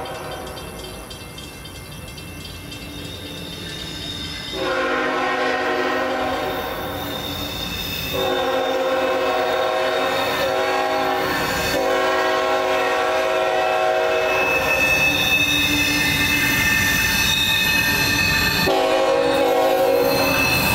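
Horn of CSX freight train M442's locomotive, sounded in several long blasts as the train approaches, growing louder. A fainter blast fades at the start, then the blasts come about 5 s in, about 8 s in, and again near the end.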